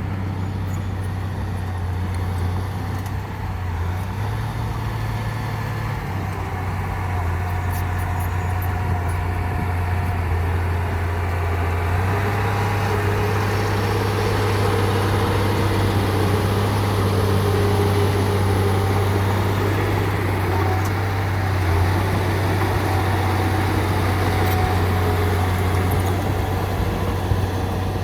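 Heavy 12-wheel dump truck's diesel engine running steadily with a deep, even hum that grows a little louder about halfway through.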